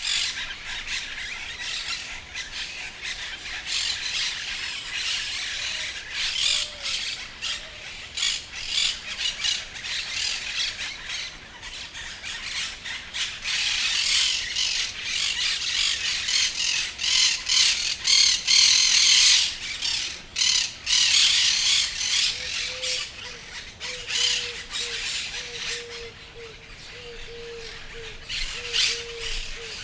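A flock of many parrots squawking and chattering, a dense run of harsh, rapid calls that rises to its busiest about halfway through.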